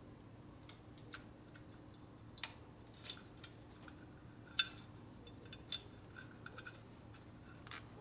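Sporadic light clicks and scrapes of electrical wire and fingers working against metal parts as wires are fished through a tight spot on a motorcycle, the sharpest click about halfway through.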